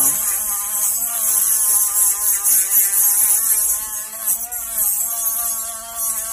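Dremel rotary tool working a small metal part: its motor whine wavers up and down in pitch as the bit loads against the metal, with a hissing grinding noise over it. Right at the end the grinding hiss stops and the motor runs on at a steadier, quieter whine.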